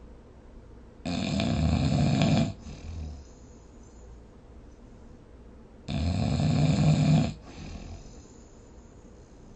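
A person snoring in deep sleep: two loud snores about five seconds apart, each lasting about a second and a half, with a short fainter sound just after the first.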